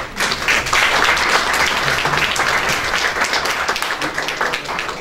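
Audience applauding: many hands clapping, starting abruptly and thinning out near the end.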